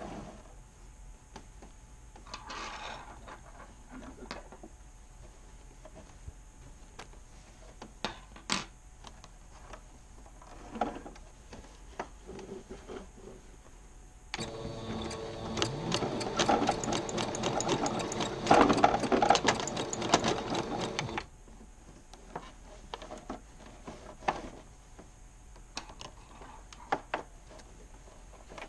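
Electric sewing machine started with its start/stop button, stitching at a fast, even rate for about seven seconds near the middle, then stopping. Before and after the run there are only a few faint clicks.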